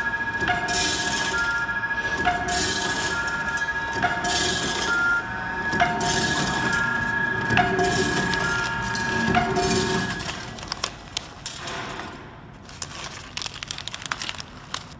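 Vertical form-fill-seal packing machine running through its bagging cycle: a burst of hiss repeats about every 1.7 seconds over a steady whine and short blips. About ten seconds in the machine sound stops, and sealed plastic soybean pouches crinkle and click as they are handled.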